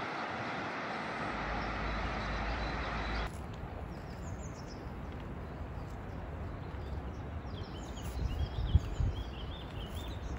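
Outdoor ambience in two parts: a steady rushing noise for about three seconds, then a sudden cut to a quieter meadow with birds chirping and a few low thumps and rustles near the end.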